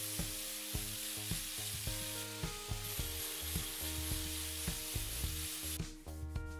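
Angle grinder's abrasive disc grinding a steel rod, a steady high hiss that stops about six seconds in. Background music with a steady beat plays throughout.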